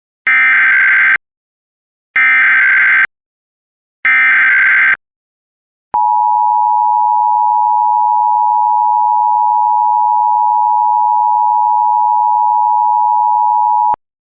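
Emergency Alert System SAME header: three short bursts of screechy digital data tones, each about a second long and two seconds apart, marking the start of an emergency alert. Then comes the EAS attention signal, one steady tone held for about eight seconds that stops abruptly.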